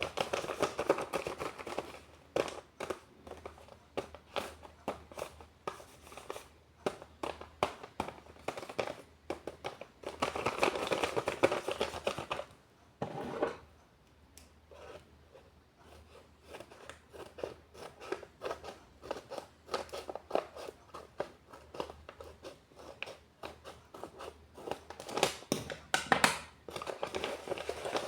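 Paper crinkling and rustling in irregular bursts of sharp crackles as a handmade paper blind bag is handled and opened, with denser stretches near the start and about ten seconds in.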